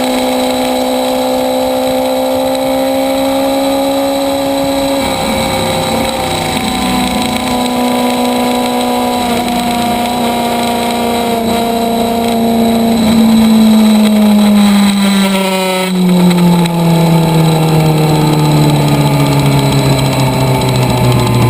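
Track motorcycle engine under way at a steady pitch, with a break in its note about five seconds in, a brief dip near sixteen seconds, then a slow, steady fall in pitch as it slows down.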